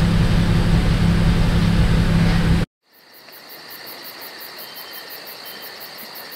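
BMW M2's engine idling steadily through its M Performance exhaust, then cutting off abruptly about two and a half seconds in. A much quieter stretch follows, with a faint high steady whine and a fast even pulsing at about six a second.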